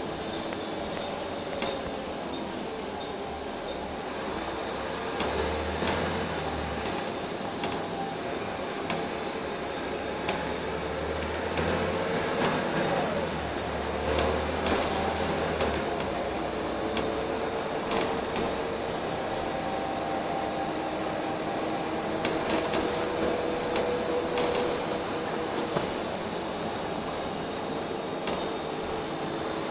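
Inside a Wright Eclipse single-deck bus on the move: steady engine and road drone, with frequent short clicks and rattles from the body and fittings. A deeper engine rumble swells several times in the first half, and a faint steady whine comes in later.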